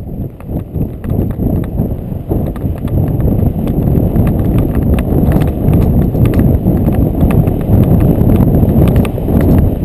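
Friesian horse running on a dirt track, its hoofbeats heard from the saddle as a rapid, continuous drumming that grows louder over the first few seconds.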